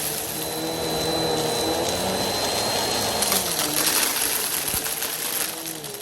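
Vacuum cleaner with its brushroll running while picking up dry rice, macaroni and beans, which rattle and click as they are sucked in. The motor's pitch dips briefly a couple of times, around the middle and near the end.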